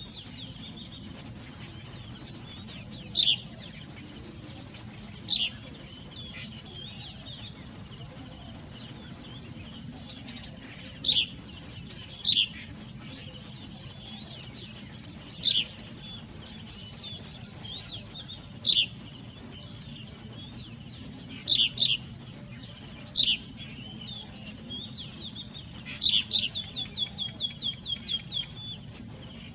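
Birds calling: sharp, high single chirps every few seconds, some in quick pairs, then a fast run of about nine repeated notes near the end, over a steady low background hum.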